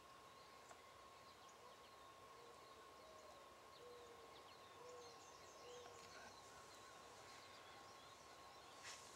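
Near silence of an open field: faint distant bird chirps and a short series of soft, low hooting notes, over a faint steady high tone. A few light rustles and clicks come near the end.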